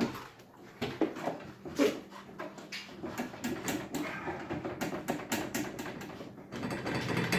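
Metal garage door hardware being worked by hand: scattered sharp clicks and knocks, then a faster, busier clicking rattle from about three seconds in.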